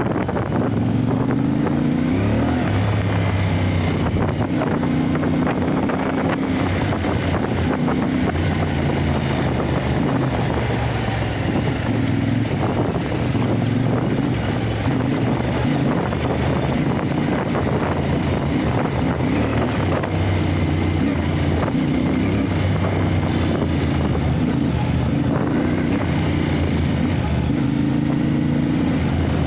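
Motorcycle engine running under way off road, its revs rising and falling again and again, with wind noise on the microphone.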